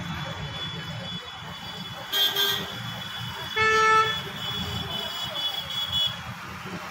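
Road traffic with vehicle horns: two short horn toots, about two seconds in and near four seconds in, over a steady low traffic rumble.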